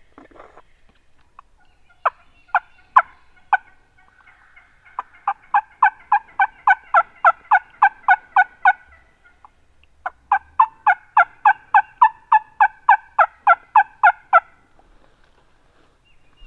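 Turkey yelps: a few single notes, then two long runs of rapid, evenly spaced yelps at about five a second, each run lasting about four seconds with a short pause between them.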